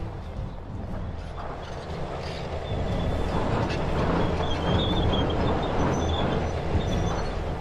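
Tanks rolling: a heavy rumble of engines with clanking and squealing of tracks, growing louder about three seconds in.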